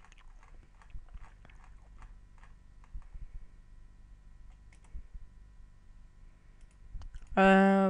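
Faint, scattered clicks of a computer mouse as the font list is scrolled and a font picked, over a low steady hum. Near the end a man's voice comes in with a held, drawn-out sound.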